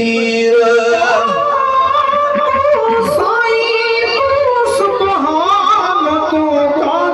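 A man singing a naat, a devotional poem in praise of the Prophet, solo and without instruments, in long held notes that waver and turn in pitch.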